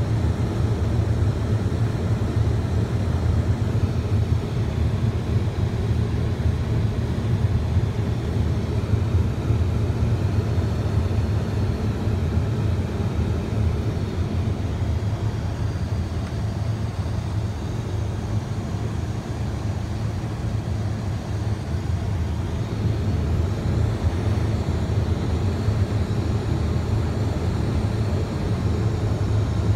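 Steady low drone of an aircraft's engine heard inside the cabin in flight, easing slightly a little past halfway and then rising again.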